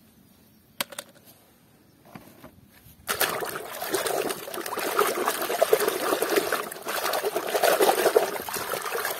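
Water splashing and sloshing in a basin as a hand churns and scrubs toys under the water. Mostly quiet at first with a single click, then the splashing starts suddenly about three seconds in and keeps on busily.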